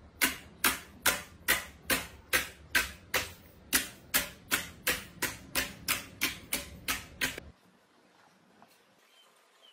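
Slime being worked by hand in a steady rhythm: about eighteen sharp clicking pops, a little over two a second, which stop suddenly about seven and a half seconds in.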